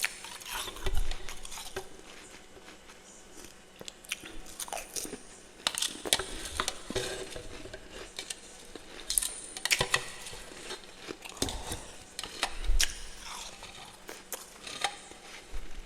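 Person biting and chewing freezer frost close to the microphone: irregular crisp crunches with short pauses between them. The loudest bites come about a second in and again about three-quarters of the way through.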